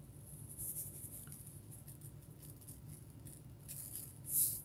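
Faint rustling and handling noises with a few light ticks, and one short louder rustling hiss near the end.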